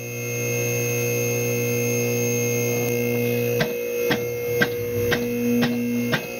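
Electric-hydraulic pump motor of a two-post car lift running steadily, lifting a UTV. From about three and a half seconds in, regular clicks come about two a second, typical of the lift's safety locks ratcheting as the arms rise.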